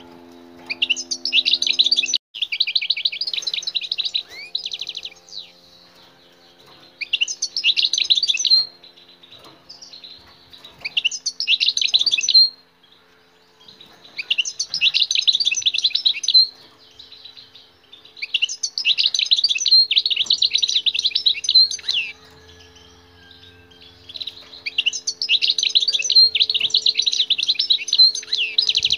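Wild-caught European goldfinch singing: about seven phrases of rapid, high twittering trills, each lasting one to four seconds, with short pauses between them.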